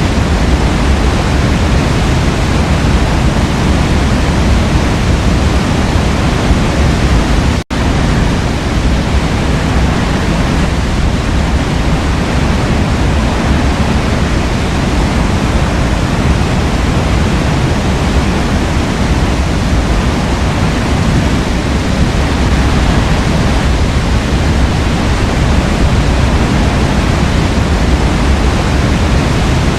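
Forest waterfall: a steady, loud rush of falling water, heaviest in the low end. The sound cuts out for an instant about eight seconds in, then carries on unchanged.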